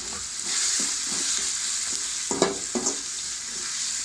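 Chopped carrots and beans sizzling in oil with onion and tomato while a spatula stirs and scrapes the pan, with two louder knocks about two and a half seconds in.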